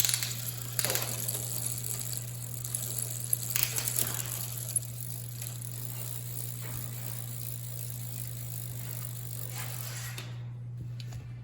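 Bicycle drivetrain and shifter being worked by hand on a repair stand: faint rattling with a few sharp clicks as a stiff, freshly lubed shift cable is worked back and forth, over a steady low hum. The mechanical noise stops near the end.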